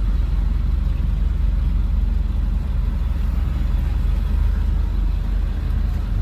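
Pickup truck engine running with a steady low rumble as the truck pulls a loaded trailer onto a scrapyard scale.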